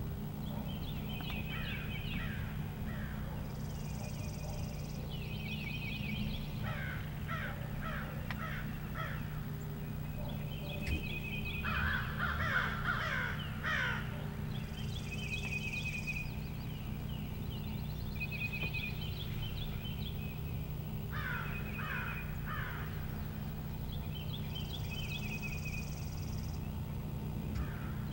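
Wild turkey gobblers gobbling in three rattling bouts, the loudest about halfway through, over steady high chirping.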